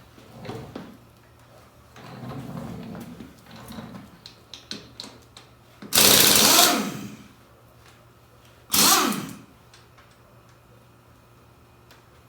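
Power tool spinning a socket on ATV lug nuts in two short bursts, the first about a second long and the second shorter, a few seconds later. It follows a few lighter knocks and clatter of parts being handled.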